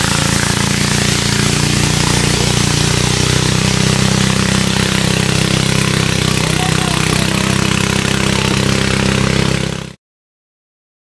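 Boat motor running steadily, a constant engine hum under a steady hiss. It cuts off suddenly near the end.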